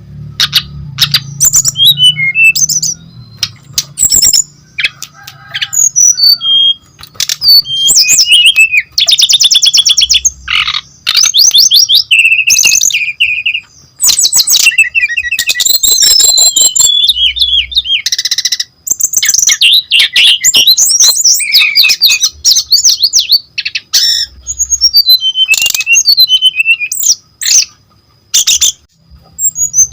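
Brown-chested jungle flycatcher (sikatan rimba dada coklat) singing a loud, fast, varied song of whistles and trills in phrases with short pauses, including runs of falling notes at the start and near the end.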